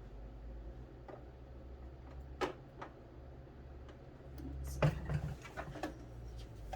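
Scattered sharp clicks and knocks from handling a power cord and plugging it into a computerized sewing machine, over a steady low hum. The loudest cluster of knocks comes about five seconds in.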